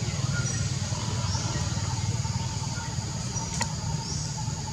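Forest ambience: a steady low rumble with short, high chirps about once a second and a faint thin whine. A single sharp click sounds past the halfway point.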